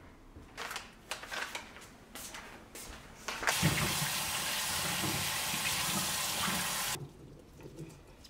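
Kitchen tap running water over asparagus spears held above a colander in the sink, starting suddenly about three and a half seconds in and shutting off about three seconds later. Before it, a few light knocks and clicks of things being handled.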